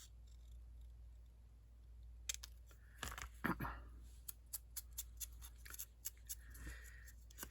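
Scissors snipping paper: an irregular run of small, sharp snips starting about two seconds in, with a few soft handling thumps.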